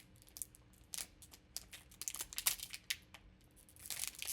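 Crinkling and rustling of a plastic trading-card pack wrapper and cards being handled: irregular short crackles, busiest about two seconds in and again near the end.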